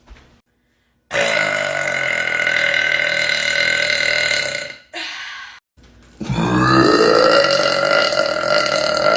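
A woman's two long, loud burps, each lasting several seconds. The second one rises in pitch as it starts.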